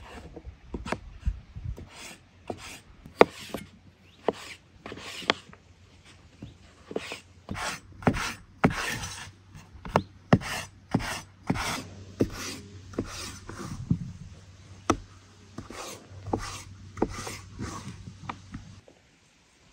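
An irregular run of short scraping strokes with sharp knocks, about one or two a second, stopping shortly before the end.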